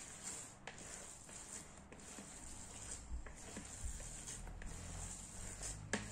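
Hands kneading a wet meatball mixture of breadcrumbs and egg, worked by feel to check it is not too wet: faint, irregular soft ticks with one sharp tap near the end.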